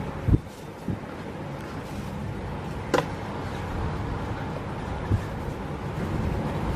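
Strong typhoon wind blowing steadily, with a few low thumps of gusts and one sharp click about three seconds in.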